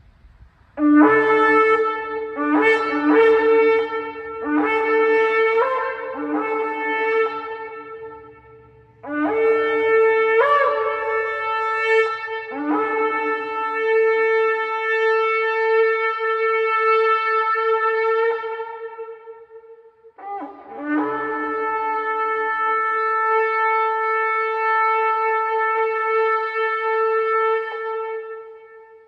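Long Yemenite shofar blown in a series of short blasts, each breaking from a lower note up to a higher one. These are followed by two long, steadily held blasts of several seconds each.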